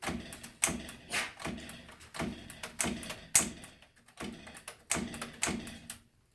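Keys of a 1974 Smith-Corona Galaxie Twelve manual typewriter struck one at a time in slow, uneven typing: about a dozen sharp typebar strikes at roughly two a second, stopping about six seconds in.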